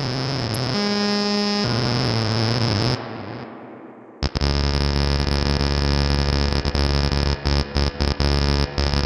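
Moog Mother-32 synthesizer, its oscillator frequency-modulated by a chaotic rungler from the Mr. Grassi touch module and its envelope triggered by a second rungler. A harsh, noisy drone with a short steady pitched tone about a second in fades out around three seconds. After a brief gap a loud buzzy tone comes in and stutters off and on near the end.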